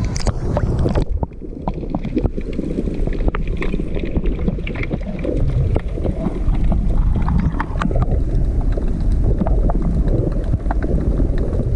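Action camera plunged into the sea about a second in: a brief splash, then muffled underwater rushing and low rumble of moving seawater, dotted with many small clicks and crackles.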